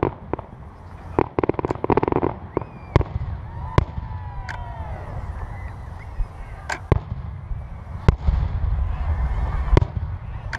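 Aerial fireworks shells bursting: a quick run of crackling pops about a second in, then single sharp bangs every second or two.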